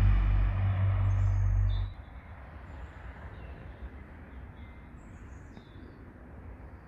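Low rumble of road traffic for about the first two seconds, cutting off suddenly. After that, a quieter outdoor background with small birds chirping a few times.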